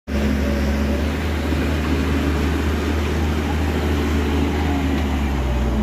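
A large engine running steadily at a constant speed, with a strong low hum.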